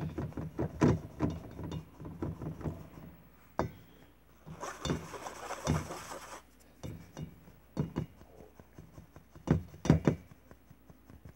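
Flour being sifted: a stainless steel mesh sieve shaken and tapped by hand over a metal bowl, giving runs of light taps and rattles, a stretch of soft rustling midway, and two sharper knocks near the end.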